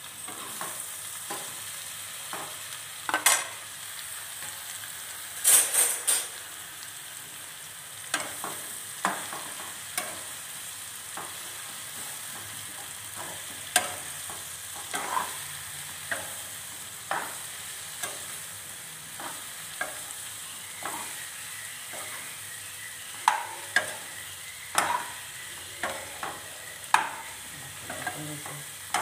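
Mushrooms sizzling in hot oil in a nonstick pan while a metal ladle stirs them, scraping and knocking against the pan every second or so. There is a louder clatter about three seconds in and again about five to six seconds in.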